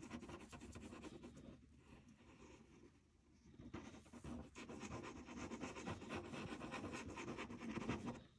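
Faint scratching and rustling on paper as glue is worked out of a bottle nozzle onto it, with a lull about two seconds in.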